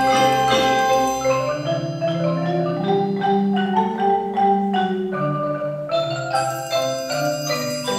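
Percussion ensemble playing on marimbas and other mallet instruments: a melody of struck, ringing notes over a moving bass line.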